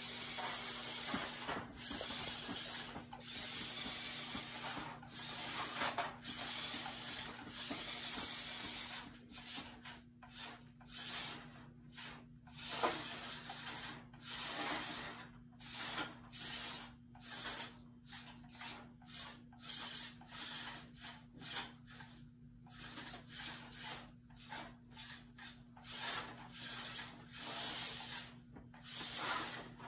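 Small VEX IQ competition robot's electric motors and wheels whirring in many short stop-start bursts as it is driven and lifts game pieces, with a steady low hum underneath.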